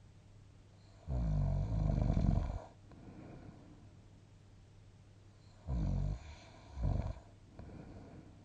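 A sleeping person snoring: one long snore about a second in, then a faint breath, then two short snores close together near the end, followed by a softer breath.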